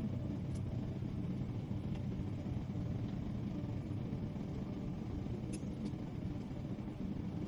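Steady low rumble of airliner cabin noise in flight, with a few faint ticks.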